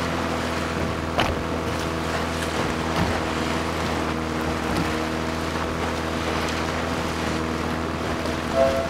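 A boat's engine running with a steady drone, with wind on the microphone and the wash of the sea around it. Music begins right at the end.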